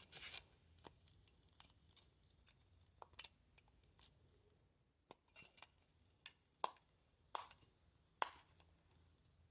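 Faint, scattered clicks and taps of fidget toys being handled, irregular and a second or so apart, the sharpest in the second half.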